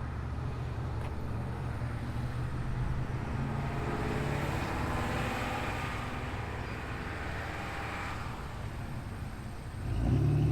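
A motor vehicle passes by, its noise building and fading over a few seconds, over a steady low engine rumble. A louder low engine sound starts near the end.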